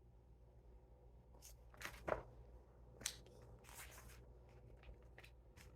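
Faint paper rustling and soft crinkles from a picture book's pages being handled and turned. The rustles are short and scattered, with the loudest about two seconds in.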